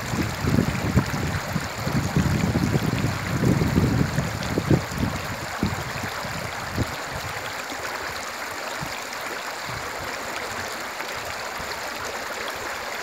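River current flowing and swirling close to the microphone, a steady rushing murmur of water. Uneven low buffeting runs through the first half and dies away about six seconds in, leaving the even rush.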